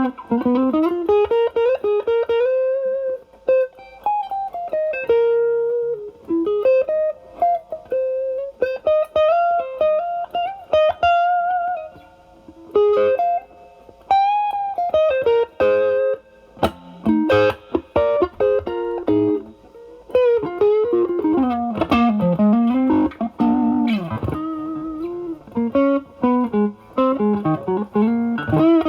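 Stratocaster electric guitar through an Ibanez Tube Screamer Mini overdrive pedal, set at drive 0, into the overdrive channel of a Marshall Valvestate amp. It plays single-note lead phrases with string bends and vibrato on held notes, with short pauses between phrases.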